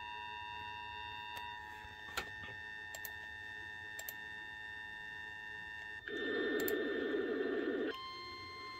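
Radio receiver's electronic hum with faint steady whining tones and a few soft clicks. About six seconds in, a burst of loud static lasts roughly two seconds and cuts off suddenly.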